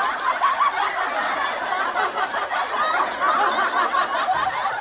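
Many people snickering and giggling at once, a steady mass of overlapping laughter like a laugh track.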